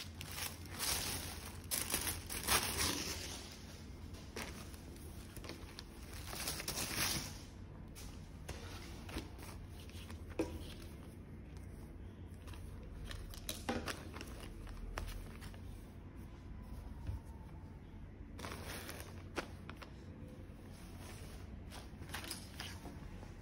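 Tissue paper and a plastic bag crinkling as a folded T-shirt is unwrapped and handled, with rustling bursts loudest in the first few seconds and again about two-thirds of the way through, and softer fabric and paper rustles in between.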